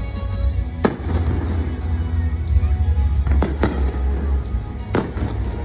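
Aerial fireworks shells bursting in sharp bangs: one about a second in, two in quick succession near the middle, another near the end. Show music and a deep steady rumble run underneath.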